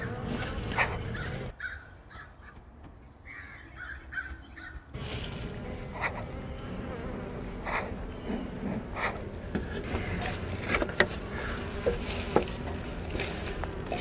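Honeybees buzzing around their hive entrance, with birds calling now and then. A few sharp clicks are heard in the second half.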